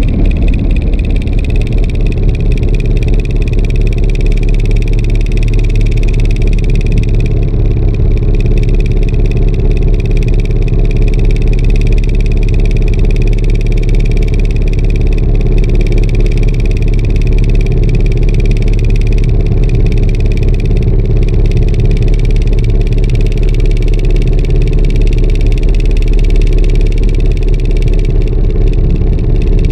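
Fishing boat's inboard engine running steadily at low speed, a loud, even throb.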